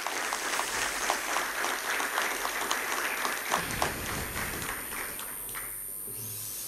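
Audience applauding, many hands clapping at once, thinning out and fading away about five to six seconds in.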